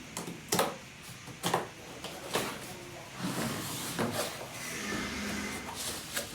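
Handling noise from equipment being picked up and set down: several sharp knocks and scrapes, roughly a second apart.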